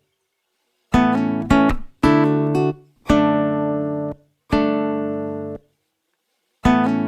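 Background music: guitar chords, each plucked and left to ring and fade, with short silent pauses between them.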